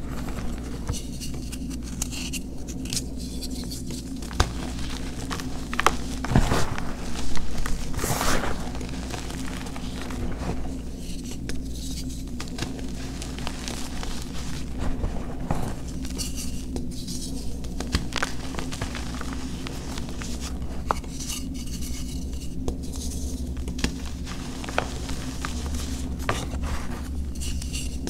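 Hands crushing and squeezing crumbled dyed chalk bars and loose chalk powder: soft crunching and crackling, with a few sharper snaps about six to eight seconds in. A steady low hum runs underneath.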